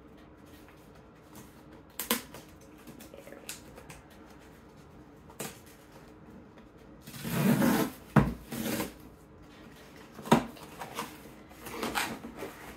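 Cardboard shipping box being opened by hand: scattered rustles, scrapes and clicks of cardboard and packaging, a longer scraping rustle about seven seconds in followed at once by a sharp knock, and another knock about ten seconds in.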